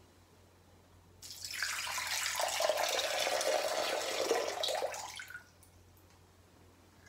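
Water poured from a glass pitcher into a glass bowl in a steady stream, starting about a second in and stopping about four seconds later.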